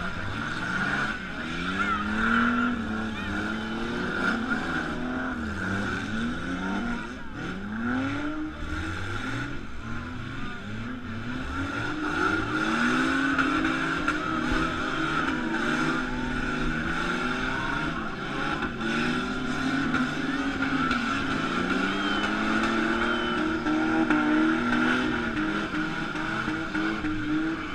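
Several demolition-derby car engines revving up and down at once, their pitches overlapping, with a steady high whine running over them.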